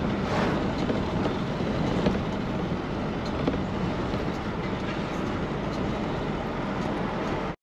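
Steady road noise heard inside a moving car's cabin: tyres rumbling on the road with the engine running, and a car passing the other way just after the start.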